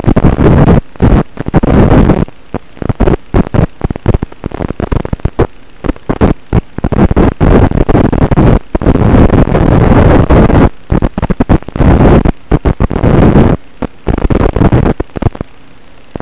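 Loud, harsh rushing noise with no clear tone, cutting in and out abruptly many times, from the audio channel of an FPV racing drone's analog video feed.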